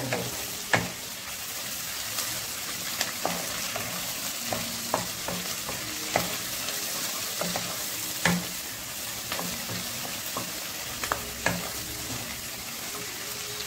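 Onion and capsicum pieces sizzling in hot oil in a black kadai as a spatula stirs them: a steady frying hiss with irregular clicks and scrapes of the spatula against the pan.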